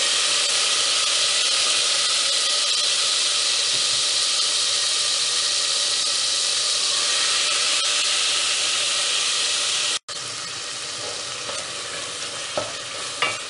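Food frying in hot oil in a pan, a loud steady sizzle. About ten seconds in it breaks off for an instant and comes back quieter, with a couple of light knocks near the end.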